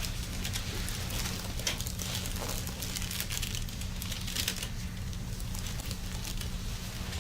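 Irregular light rustling and crinkling, as of handling on a padded table, over a steady low hum.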